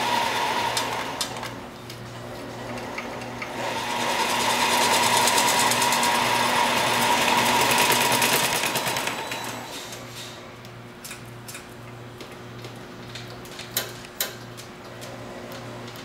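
Motorised wiring-harness taping machine, its rotating head wrapping tape around the harness wires and run up and down in speed by a foot pedal. It runs loudest from about four to nine seconds in, then slows about ten seconds in, leaving a low hum with scattered clicks and two sharp knocks near the end as the harness is handled.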